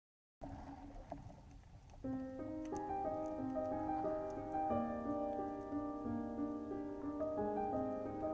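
Background music with held keyboard notes in a slow melody, starting about two seconds in after a short stretch of low hiss.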